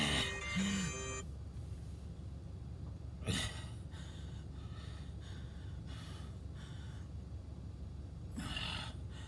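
A man's short murmur at the start, then a sharp breath about three seconds in and a long out-breath near the end, over faint background music: his reaction to brain freeze after biting down on ice pops.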